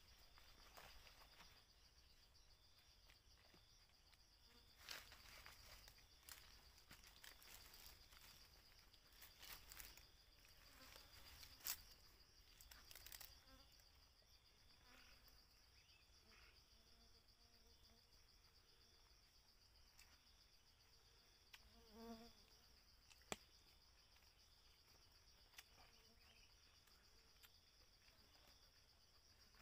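Faint, steady high-pitched insect trill, a fast even pulsing that never lets up. A few soft clicks and rustles from handling food on banana leaves come through now and then.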